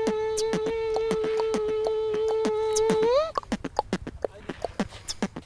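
A person beatboxing: one held hummed note over a run of quick mouth clicks, the note dropping out about three seconds in while the clicks carry on alone at a faster pace.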